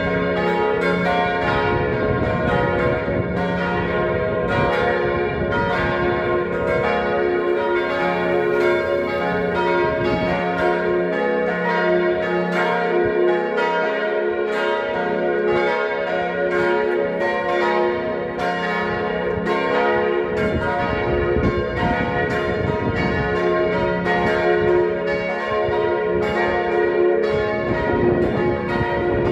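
A peal of four church bells tuned C, B-flat, A-flat and F (do4, si♭3, la♭3, fa3) ringing together, their strikes overlapping into a dense, steady ringing.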